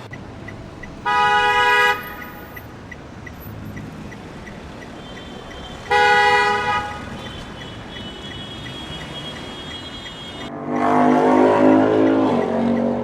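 Road traffic with two car horn blasts, each about a second long and about five seconds apart. Near the end a louder vehicle engine sound swells up over the traffic.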